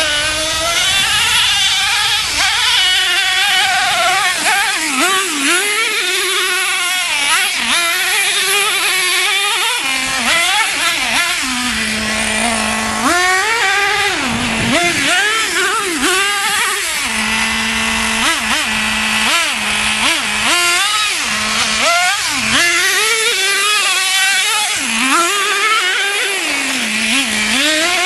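Traxxas T-Maxx 2.5 nitro RC truck's small two-stroke glow engine revving up and down again and again as the truck is driven. Twice in the middle it settles into a steady idle for a second or a few seconds.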